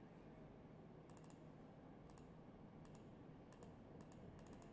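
Faint clicks of a computer mouse clicking polygon vertices, irregularly spaced, with a quick run of several clicks near the end.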